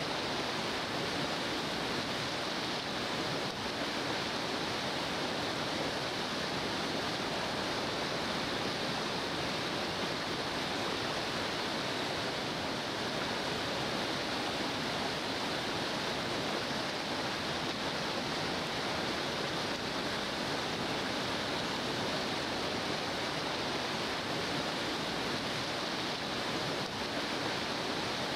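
Large river rapids: high, foaming water pouring over rock ledges, a steady unbroken rush of water.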